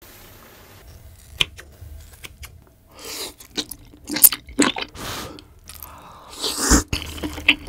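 A person eating close to the microphone: irregular chewing and biting with sharp clicks.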